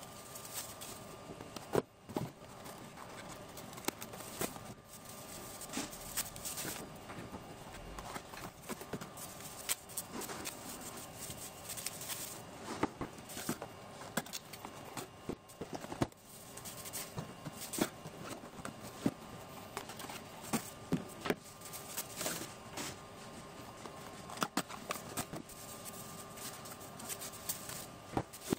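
Cardboard boxes being opened and handled, with scattered light knocks and clicks as boxes and plastic security cameras are set down on a counter, over a faint steady hum.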